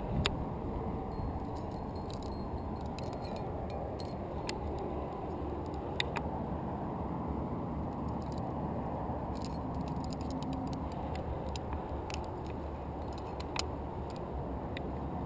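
Climbing hardware on a harness — aluminium carabiners and quickdraws — clinking and jangling with scattered sharp clicks, a few louder ones just after the start, about six seconds in and near the end, over a steady low rushing noise.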